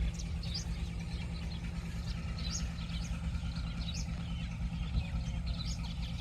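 Baby chicks peeping: many short, high chirps that fall in pitch, overlapping throughout, over a steady low rumble.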